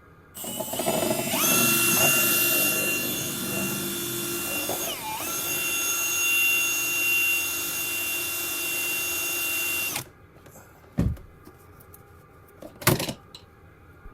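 Power drill turning a step bit into a plastic panel: it spins up to a steady whine that dips briefly in pitch midway, then stops after about ten seconds, followed by two short knocks.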